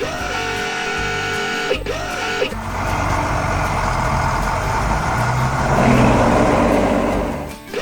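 A repeating music loop for the first couple of seconds, then a heavy machine's engine-like rumble that swells to its loudest about six seconds in and dies away just before the end.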